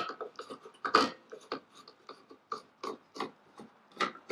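Screwdriver backing out a small Phillips retaining screw from a motorcycle headlight's retaining ring: a run of irregular small clicks and scrapes of metal on metal, sharpest about a second in and again near the end.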